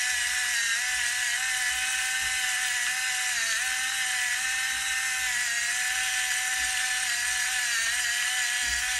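Rechargeable, gravity-operated electric pepper grinder's small motor running continuously as it grinds peppercorns on its fine setting. It gives a steady high whine that dips slightly in pitch now and then.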